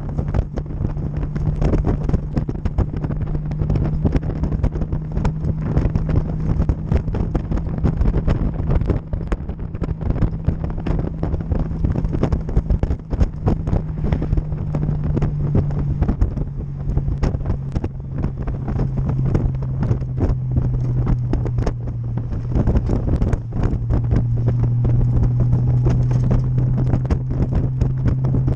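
Motorcycle engine running at a steady cruise, with wind buffeting hard on the microphone. The engine note drops slightly about halfway through, then grows louder near the end.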